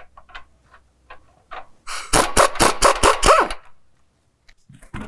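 Power tool running in a rapid series of pulses for about a second and a half, spinning the nuts off the frame bracket bolts, with a few small metallic clicks and taps before and after.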